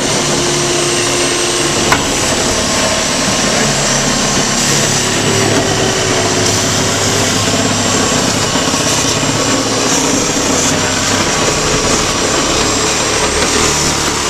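A power saw runs steadily without a break, cutting into wood.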